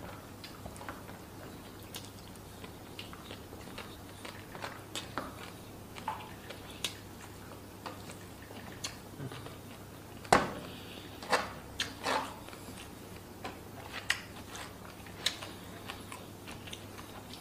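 A man eating rice by hand: chewing and wet lip smacks in a scattered run of short clicks, the loudest about ten seconds in.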